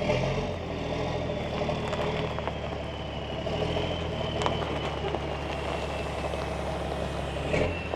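A vehicle or machine engine idling steadily, with a faint high whine that slowly falls in pitch.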